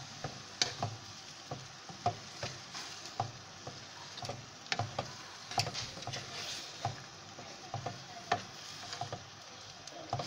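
Wooden spoon stirring beef and chopped tomatoes frying in a metal pot: a steady sizzle with repeated quick scrapes and knocks of the spoon against the pot, a few each second.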